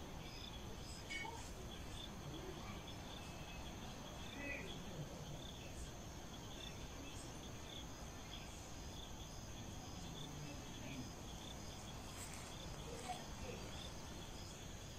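Crickets chirping in a steady, even rhythm, with a high steady insect drone above them and a low background rumble beneath.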